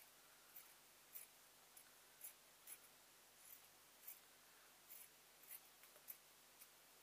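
Faint, irregular snips of fabric scissors cutting small pieces of cloth, about a dozen cuts.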